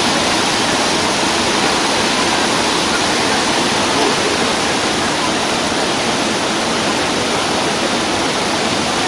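The Rhine Falls, a large river waterfall, pouring in a loud, steady rush of water noise that does not change.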